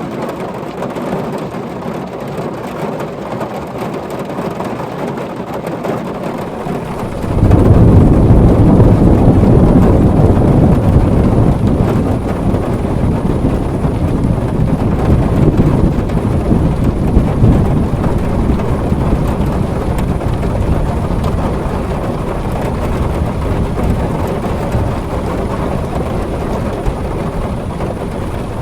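Heavy rain drumming on a tin roof; about a quarter of the way in, a loud deep thunder rumble breaks in suddenly and rolls on, slowly fading.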